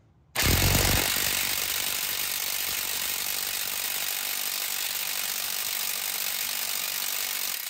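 Impact wrench hammering continuously on the crankshaft bolt of a 3.6 L Pentastar V6, trying to break loose the harmonic balancer's retaining bolt. The blast starts about a third of a second in, is loudest at first, and runs about seven seconds before stopping.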